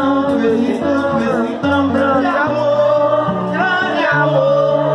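A man singing a melody into a microphone, accompanied by acoustic guitar, with held bass notes that change every second or so underneath.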